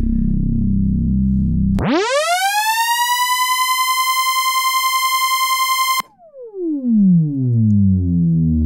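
Cherry Audio LowDown software bass synthesizer, an emulation of the Moog Taurus pedals, playing a low bass note. About two seconds in it sweeps quickly up in pitch to a high held tone. The tone cuts off suddenly about six seconds in, then glides back down to a low bass note.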